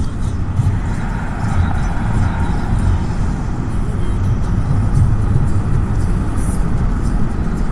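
Interior noise of a Toyota Prado driving at speed, heard from inside the cabin: a steady, loud, low rumble of engine, tyres and wind.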